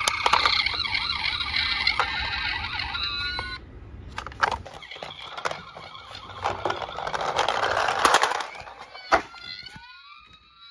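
Toy ambulance's electronic siren sounding with clicks from the plastic toy being handled, cutting off suddenly about three and a half seconds in. Then the toy rolls down a wooden ramp with a rolling rattle and a few knocks, and a faint siren wail starts again near the end.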